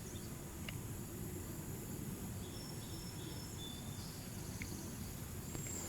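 Quiet outdoor ambience: a steady low rumble with a few faint, short high-pitched chirps and an occasional tiny click.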